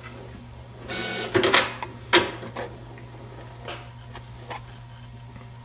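Desktop inkjet printer starting a print job: a short whir of its feed mechanism about a second in, then a series of clicks and clunks, the loudest about two seconds in, over a low steady hum.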